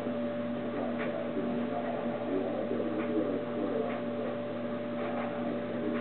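Steady electrical hum with two even tones over a light hiss, with a few faint ticks.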